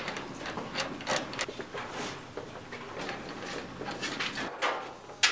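Combination padlock on a metal school locker being worked: the dial clicks irregularly, several times a second, along with small metallic knocks and rattles, and a sharp metal clack near the end.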